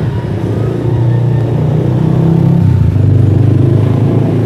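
Engine of a freshly tuned-up vehicle running steadily. Its pitch drops slightly and it gets a little louder about two and a half seconds in.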